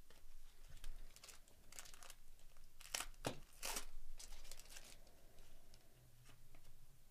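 Foil wrapper of a 2024 Topps Series 1 baseball card pack being torn open and crinkled: a run of crisp tearing and crackling noises, loudest about three to four seconds in.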